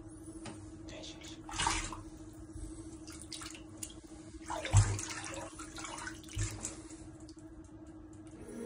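Bathwater sloshing and splashing in a tub as a ferret swims and a hand moves through the water, with a couple of dull knocks about five and six and a half seconds in. A steady low hum runs underneath.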